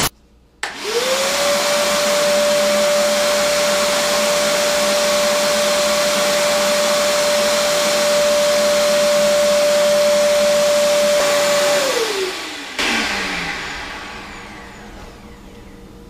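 A RIDGID 9-gallon 4.25-peak-HP wet/dry shop vacuum is switched on. Its motor spins up with a rising whine, then runs steadily with a loud rush of air at the hose. About twelve seconds in it is switched off, and the whine falls away as the motor winds down.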